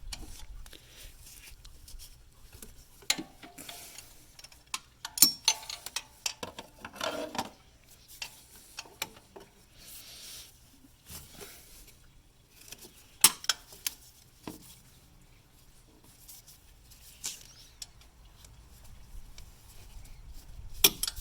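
Hand tools clinking and clicking against metal as the bolts holding an accessory-drive belt tensioner are undone and the tensioner is taken off the engine. Scattered sharp metallic knocks and clicks, the loudest about five seconds in, about thirteen seconds in and just before the end.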